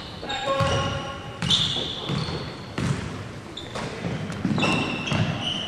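The sounds of a basketball game in a sports hall: players shouting short calls, shoes squeaking briefly on the court, and a ball bouncing, all echoing in the hall.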